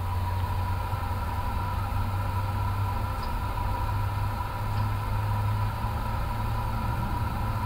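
Steady hum inside an Airbus A350 cockpit, with a constant mid-pitched tone, as an engine runs up after light-up during the automatic engine start.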